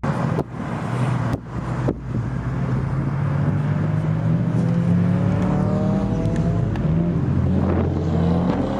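Car engine running on the road, a steady low hum whose pitch climbs slowly from about three seconds in as the car accelerates. The sound breaks off abruptly a few times in the first two seconds.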